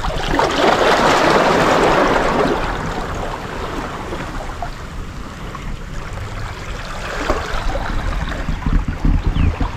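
Seawater washing among the rocks of a breakwater, with wind rumbling on the microphone. The rush is loudest for the first couple of seconds, then settles to a steadier, softer wash.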